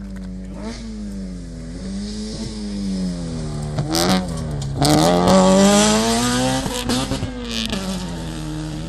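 Rally car engine revving hard through the gears as it comes through on gravel, the pitch climbing and dropping with each shift and lift. It is loudest about five seconds in, with a hiss of tyres and flung gravel over it.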